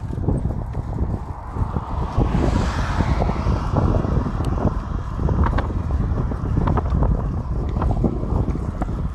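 Wind buffeting the microphone of a camera carried on a moving bicycle, with irregular rattles and knocks from the bike as it rolls over the road. A brief rushing hiss rises and fades about two to three and a half seconds in.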